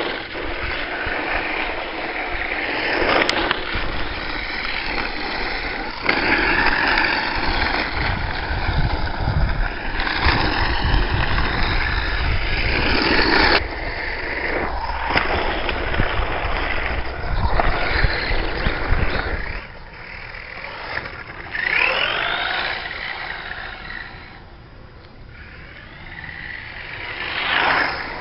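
LRP S10 Blast BX electric RC buggy driving and passing close by: motor whine rising and falling in pitch as it passes, with tyre noise on gravel and tarmac.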